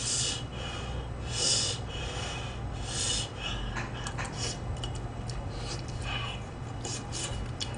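A person eating a boiled dumpling from a spoon: mouth and chewing sounds with short hissing breaths through the mouth, the first three about a second and a half apart, and scattered small clicks.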